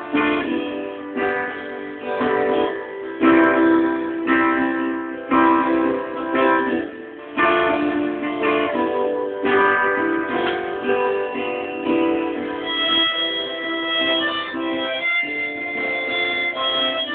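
Instrumental opening of a folk song: a guitar strumming chords, with long held high notes joining in during the last few seconds.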